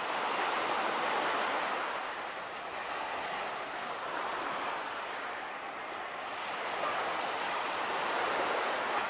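Small surf breaking and washing up a sandy beach at the water's edge: a steady rush that swells near the start, eases in the middle and swells again near the end.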